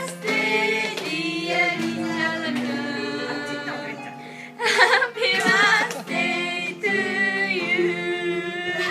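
Several voices singing a song together in long held notes.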